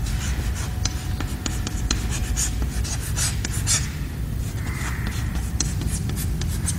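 Chalk writing on a chalkboard: a quick, irregular run of taps and scratchy strokes as letters are written, over a steady low hum.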